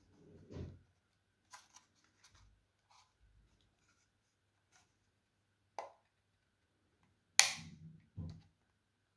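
A plastic card prying at the seam of a Microsoft RJN-00026 Bluetooth mouse's plastic shell: scattered light plastic clicks and ticks, a sharper click about six seconds in, then a loud sharp snap and another click a moment later.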